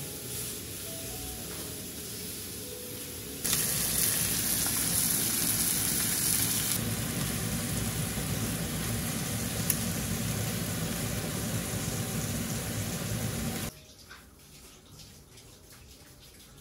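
Cubes of hanwoo beef sizzling as they fry in a hot pan, a steady hiss that gets louder about three and a half seconds in and cuts off suddenly near fourteen seconds. A single sharp click about ten seconds in.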